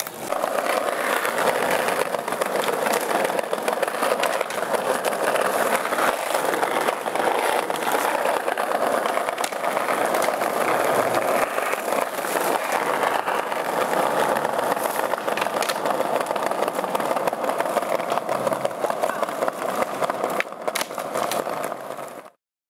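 Skateboard wheels rolling steadily over paving, a continuous rolling rumble with scattered small clicks, cutting off suddenly near the end.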